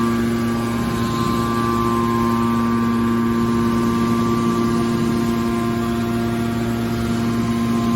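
Aluminium-can press baler's machinery running with a steady, even hum.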